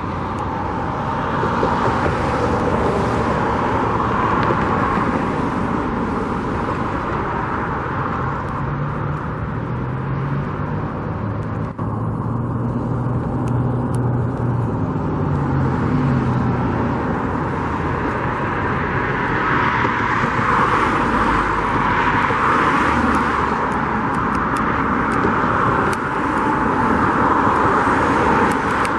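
Road traffic noise, with vehicles passing in slow swells. A low engine hum runs under it for several seconds in the middle.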